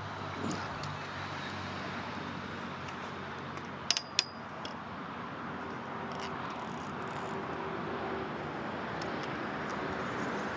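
Steady outdoor background hum, with two sharp metallic clicks close together about four seconds in and a few fainter ticks later.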